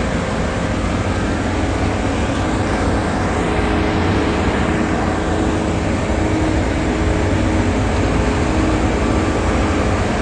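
Steady city street traffic noise, with a vehicle engine running and a low hum of motors throughout.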